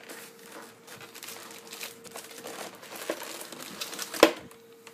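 Packaging crinkling and rustling as the keyboard is handled and lifted out of its box, with one sharp knock a little after four seconds in.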